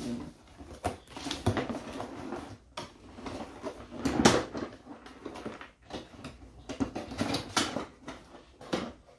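A cardboard product box being handled: irregular rustling and scraping with scattered knocks, the loudest about four seconds in.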